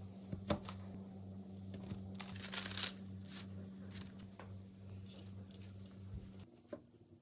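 A knife cutting scone dough on a floured, parchment-lined sheet pan: scattered taps and clicks, with a rustling scrape on the paper a little over two seconds in that is the loudest sound. A steady low hum runs underneath and cuts off about six and a half seconds in.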